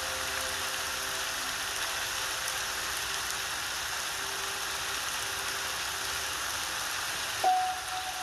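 Background music track of steady rain sounds with sparse piano. A held chord fades out over the first couple of seconds, a faint note sounds midway, and a new, louder piano note is struck near the end.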